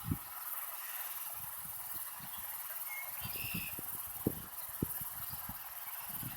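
Steady hiss of rain and wind in a severe thunderstorm, with irregular low thuds and a short high chirp about three and a half seconds in.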